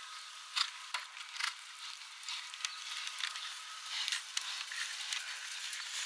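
A horse's hoofbeats on grass turf, an irregular series of dull thuds over a steady hiss, getting louder from about four seconds in as the horse nears.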